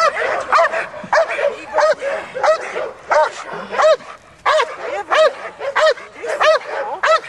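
Belgian Malinois barking at a decoy threatening it with a stick in protection (bite-work) training: a steady run of evenly spaced barks, about one every two-thirds of a second, a dozen or so in all.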